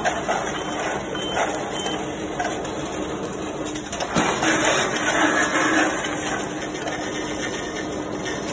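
Steady running noise of factory machinery, with scattered light clicks and a low hum that comes and goes.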